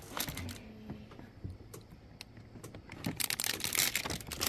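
Hard plastic toy kitchen parts clicking and tapping as pieces are handled and fitted together, with a louder flurry of clicks and rattling in the last second or so.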